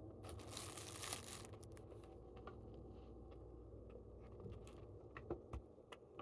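Faint crinkling and tearing as the roast chicken, flatbread and their wrapping are handled and pulled apart. The rustle lasts about a second near the start, followed by a few small clicks and taps.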